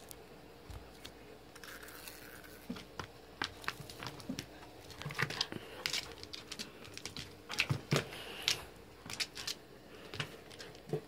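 Scattered light clicks and taps, sparse at first and thickest in the middle: a corgi puppy's claws scrabbling on a wooden floor as it lunges and paws at a small hard plastic toy. A faint steady hum sits underneath.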